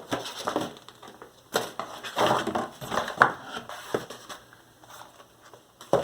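Packaging being handled: irregular crinkling and rustling with a few sharp clicks and knocks, busiest in the middle.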